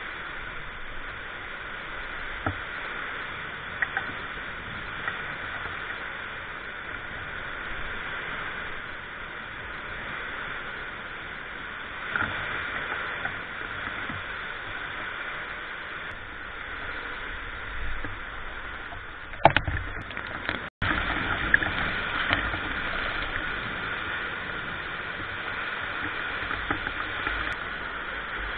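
Hailstorm: heavy rain driven by strong wind makes a steady rushing hiss, with a few sharp ticks and knocks of hailstones striking. The sound drops out for a moment about twenty seconds in.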